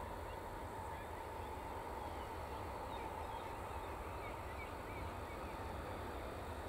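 BAe 146-100's four turbofan engines at taxi power: a steady jet whine over a low rumble. Short bird calls chirp faintly over it in the middle.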